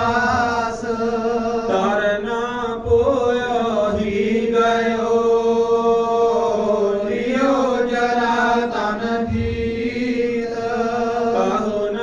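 A single voice singing Sikh Gurbani verses in a slow, drawn-out chant over a steady drone, with a few soft low thumps.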